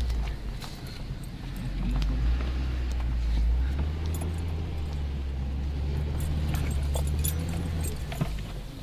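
Off-road SUV engine running under light throttle, heard from inside the cab as a steady low drone that eases briefly about a second in and again near the end, with scattered rattles and knocks from the vehicle bouncing over the trail.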